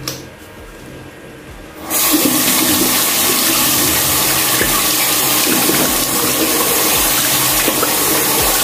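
Running water from a tap, a steady rush that starts suddenly about two seconds in and cuts off abruptly at the end, as face wash is rinsed off the face.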